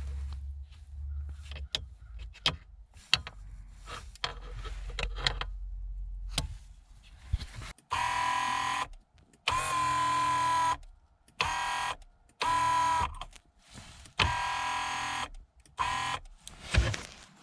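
Mercedes-Benz W203 electric steering column adjustment motor running in several short bursts of about a second each, starting about halfway through. Scattered clicks and knocks come before the bursts.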